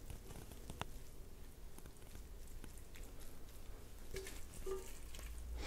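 Metal kitchen tongs lifting wet boiled spinach out of a stainless saucepan onto a plate: faint clicks and soft handling sounds, with two brief small sounds near the end.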